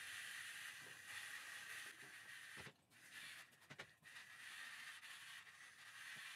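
Near silence: faint steady hiss that drops away for about a second and a half near the middle.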